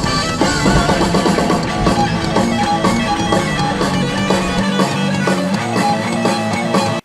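Rock music with guitar and drums. The deepest bass drops out past the middle, and the music stops abruptly at the end.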